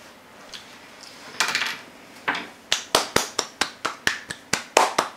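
A short rustle, then from about two seconds in a fast, even run of sharp clicks, about four a second.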